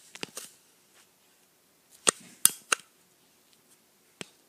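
A few sharp clicks from an object being handled, likely as the device is worked to change its setting: one just after the start, three in quick succession about two seconds in, and one more near the end.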